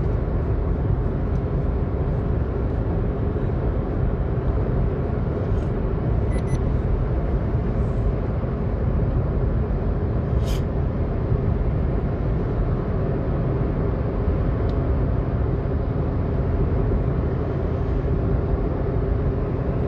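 Car cruising at highway speed, heard from inside the cabin: a steady drone of tyre and engine noise. A single short click sounds about ten seconds in.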